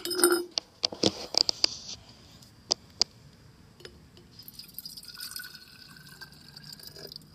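Water being poured into a glass jar, running steadily from about four seconds in until near the end. It is preceded by a cluster of sharp clicks and knocks from the containers being handled.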